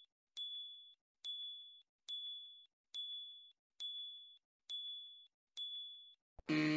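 Timer sound effect: a bright electronic ding repeating evenly a little more than once a second, seven times, each fading quickly as it counts off the seconds. Near the end, a click and then a short buzz.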